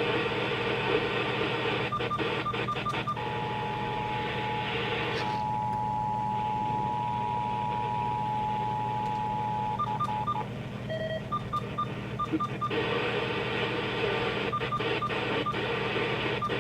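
Emergency Alert System two-tone attention signal: a steady pair of tones held for about six and a half seconds, starting about three seconds in, with short beeps before and after it. The broadcast signal sounding for a required monthly test, over radio static.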